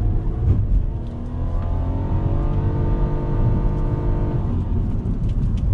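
Nissan Kicks e-POWER under hard acceleration, heard from inside the cabin. Its 1.2-litre three-cylinder petrol engine drives only a generator to charge the battery. Its note rises in pitch and holds, then fades about four and a half seconds in, over a steady low road rumble.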